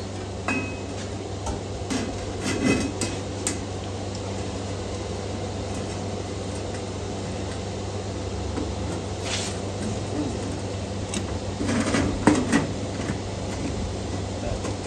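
Loose sheet-steel wheel-tub panels being handled and fitted against each other: scattered light metal clinks and scrapes, busiest a couple of seconds in and again near the end, over a steady low background hum.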